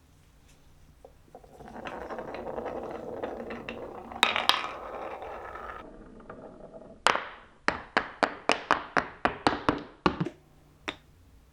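Glass marble rolling along a wooden marble-run track with small clicks and a couple of harder knocks, then a fast, even series of sharp clicks as it drops down through wooden pieces, and a last single click near the end.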